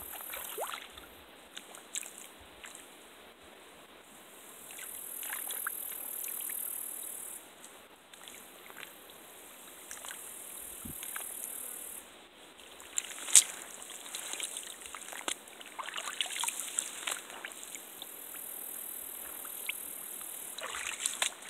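Light sloshing and trickling of shallow marsh water, with scattered small clicks, one sharper click about halfway through, and a high hiss that comes and goes.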